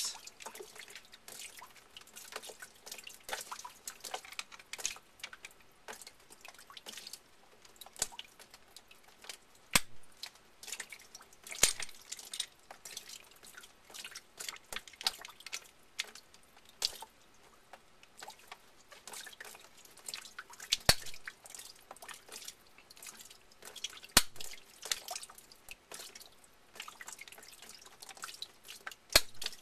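Irregular sharp clicks and taps of hand tools working a crimp ring onto a PEX tee, a few of them much louder, with water dripping from the cut pipe.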